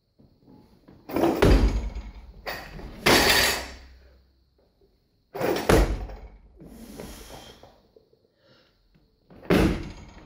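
Heavy thuds of a loaded barbell with bumper plates during a clean and jerk: the bar catching on the shoulders and the lifter's feet stamping on the platform. There are three loud impacts, about a second in, just before six seconds and near the end, with plates and bar rattling after the first.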